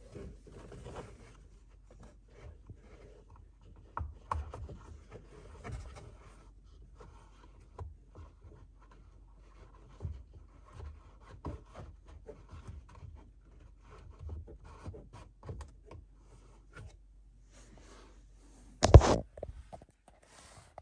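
Scattered rubbing, scraping and light clicks of a cabin air filter being pushed and worked into its plastic housing, with one loud knock near the end.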